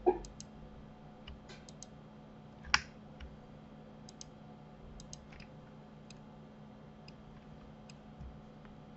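Scattered clicks of a computer mouse and keyboard keys, with two louder clicks right at the start and about three seconds in, over a faint steady hum.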